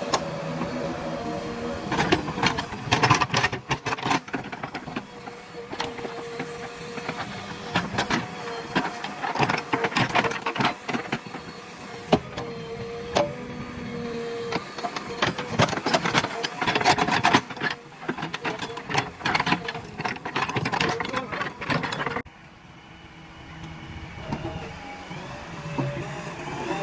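JCB 3DX backhoe loader's diesel engine running under load, with repeated metallic clanks, knocks and scrapes as it digs soil. Near the end the clatter stops suddenly, leaving a quieter steady engine sound.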